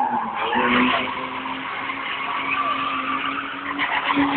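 Tyres squealing continuously as a BMW drifts, with its engine held at steady revs underneath.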